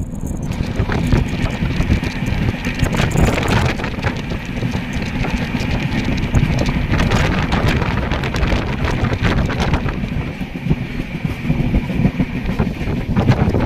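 Passenger train coach running at speed: wheels clattering over the rails with many short clicks and a faint steady high tone, and wind buffeting the microphone at the open doorway.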